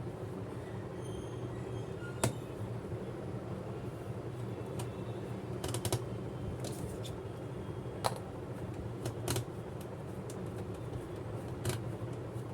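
Scattered light clicks and taps from a screwdriver and the laptop's plastic casing and parts being handled, a few in quick pairs, over a steady low background hum.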